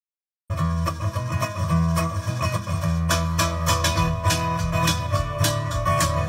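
Live acoustic band music: strummed guitar with fiddle and harmonica over it, with sharp percussive hits. The music cuts in abruptly about half a second in.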